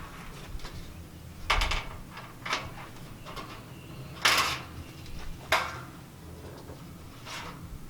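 Irregular metallic clanks and knocks from corrugated metal siding panels being worked on, about five sharp hits with the loudest a little past the middle.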